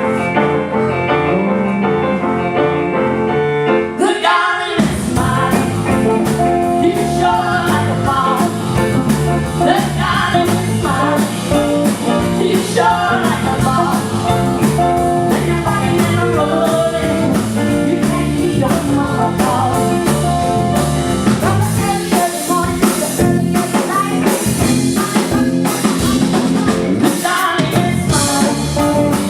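Live rock and roll band playing a song with singing: held keyboard notes at first, then the full band with drums and guitar comes in about four seconds in.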